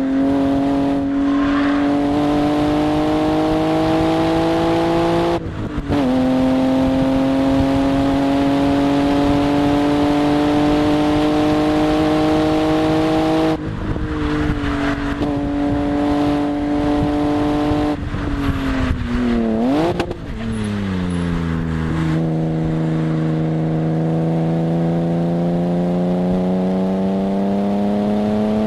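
BMW E36 M3's inline-six engine under hard acceleration on a race track, with wind noise over the outside of the car. The revs climb steadily with quick upshifts about five and thirteen seconds in. Around nineteen seconds it brakes and downshifts with a sharp throttle blip, then the revs climb again from low.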